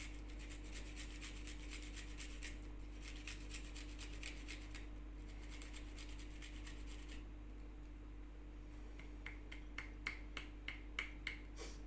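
Food rasped against a hand grater: quick, continuous scraping strokes for most of the first seven seconds, then after a short pause a run of slower, separate strokes.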